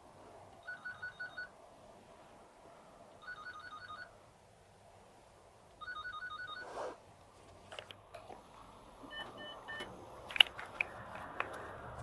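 Apartment-block door-entry intercom calling a flat: three bursts of rapid electronic ringing beeps, a couple of seconds apart. About nine seconds in come three shorter beeps, then a few sharp clicks, the loudest a little after ten seconds.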